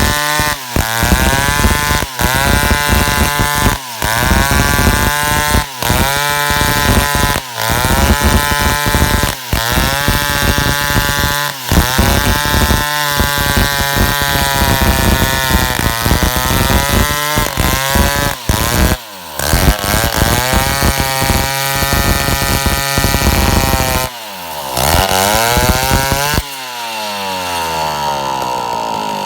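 A Stihl two-stroke chainsaw runs at high throttle cutting eucalyptus wood. The engine pitch dips sharply and climbs back about every two seconds as the chain loads up in the cut. Near the end the throttle is released, the engine revs once more and then settles to a steady idle.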